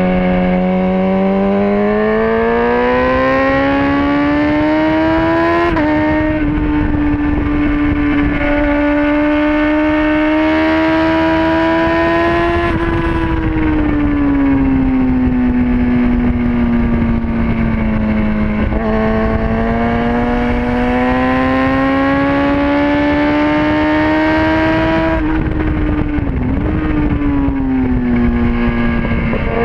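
Sport motorcycle engine under hard acceleration, heard from the bike itself: the pitch climbs steeply, breaks at a gear change about six seconds in, falls away from about thirteen seconds as the bike slows, then climbs again and drops near the end, over steady rushing wind.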